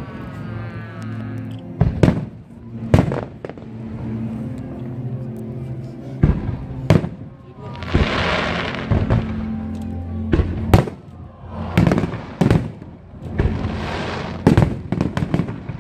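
Aerial fireworks bursting, with sharp bangs every one to two seconds and stretches of crackle, over music playing steadily underneath.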